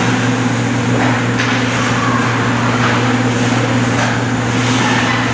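Ice hockey play: skate blades scraping the ice and sticks knocking against the puck, with a couple of sharp knocks about a second in, over a steady low hum.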